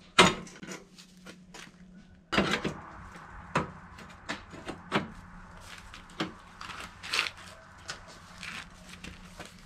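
Steel tube being worked out of and back into welded flat-bar brackets on an ATV frame, a tight press fit: a sharp metal knock at the start, a cluster of knocks a little over two seconds in, then single knocks and scrapes about once a second.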